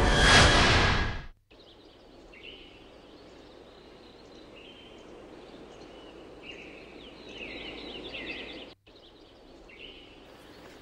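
Loud film music swells and cuts off about a second in. Then comes quiet outdoor ambience with a steady hiss, with small birds chirping every second or two in short chirps that fall in pitch.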